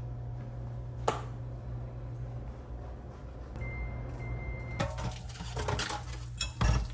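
A kitchen appliance gives a steady electronic beep, broken once into two parts, over a low steady hum. A click comes about a second in, and kitchen clatter with a loud thump follows near the end.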